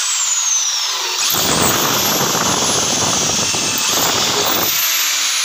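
Corded electric drill running with a high motor whine that slowly sinks in pitch and picks back up twice. From about a second in until near the end, its wood bit is boring through the wooden drawer front, adding a dense grinding noise.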